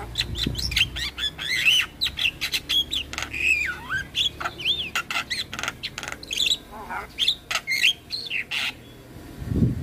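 Javan myna singing a fast, varied medley of short whistles, gliding notes, harsh squawks and clicks, with barely a pause between notes. A low thud comes near the end.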